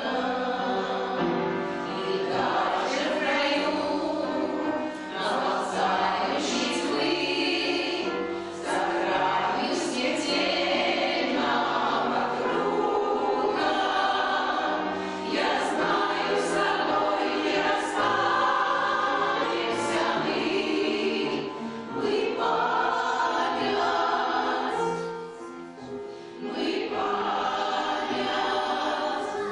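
A veterans' choir singing a song in phrases, with a brief dip between phrases about 25 seconds in.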